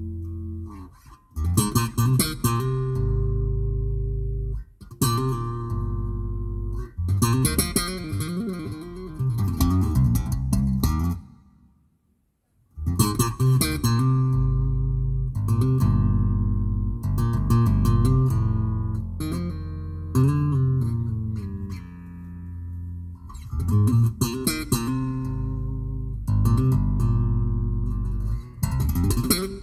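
Music with plucked guitar and heavy bass, played loud through an aftermarket car audio system: Focal ES165K component speakers and twin Re Audio SEX v2 D4 subwoofers. The music drops out for about a second a little before halfway, then resumes.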